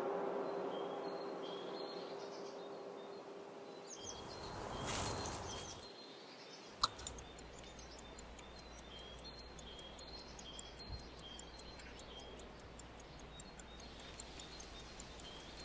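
A pocket watch ticking faintly and quickly, about four ticks a second, starting soon after a single sharp click about seven seconds in. Faint bird chirps sound throughout, over a fading hum in the first few seconds.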